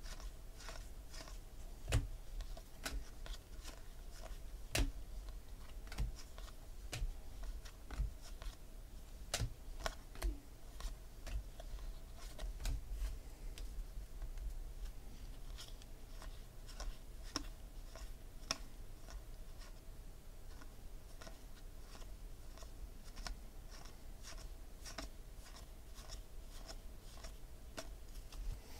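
Trading cards handled and sorted by hand: irregular light clicks and snaps of card stock against card stock and a plastic card holder, over a faint low hum.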